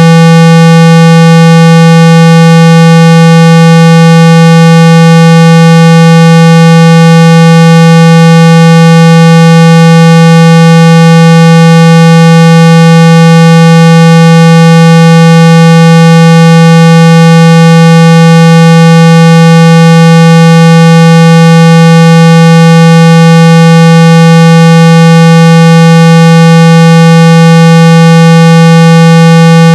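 A steady, very loud 165 Hz tone with a string of fainter overtones above it, unchanging throughout. It is a speaker-cleaning tone, played to shake water and dust out of a phone speaker.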